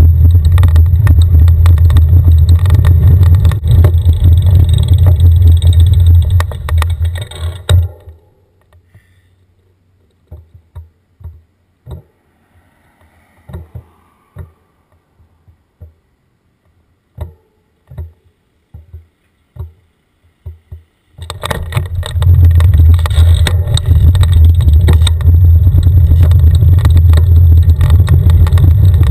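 Wind buffeting the microphone of a camera on a moving bicycle: a loud, steady low rumble. About eight seconds in it fades to near silence broken by scattered clicks and knocks, and about twenty-one seconds in the rumble returns.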